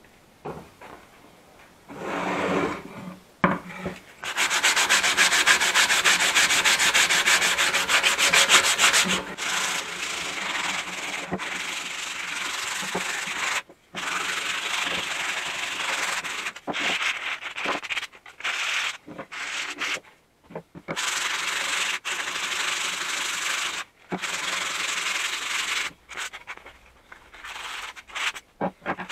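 Sandpaper rubbing over the wood of a bentwood chair. The sanding starts about two seconds in, is loudest for the next several seconds, then goes on in stretches with brief pauses.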